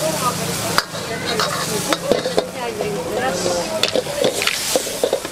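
Fried rice sizzling in a hot pan while a spatula stirs and scrapes it, with frequent sharp clanks of the spatula against the pan.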